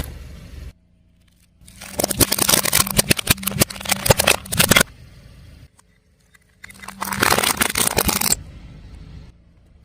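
A car tyre rolling over and crushing crunchy objects: a dense crackle of snapping and cracking over the car's steady engine hum, in two bursts about two seconds each.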